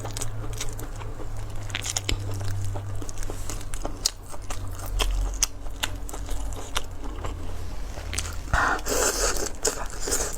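A person eating close to the microphone: bites and crunchy chewing with many small clicks, and a louder, noisier crunching stretch near the end, over a steady low hum.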